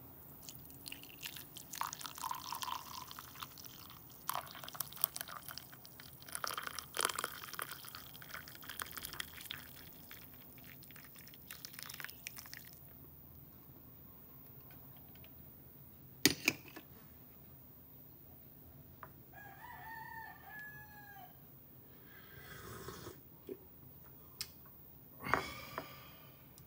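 Coffee poured from a French press into a ceramic mug, the stream splashing for about twelve seconds. It is followed by a single sharp click and, a few seconds later, a brief wavering pitched call.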